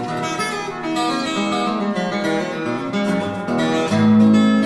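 Acoustic guitar instrumental music, a melody of picked notes over a bass line.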